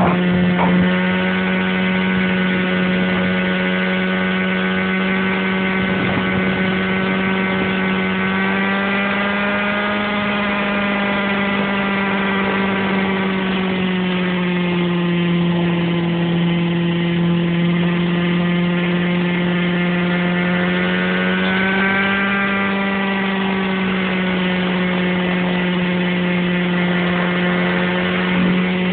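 Radio-controlled model helicopter in flight, its engine and rotor giving a loud, steady drone with a small dip in pitch midway and a slight rise later.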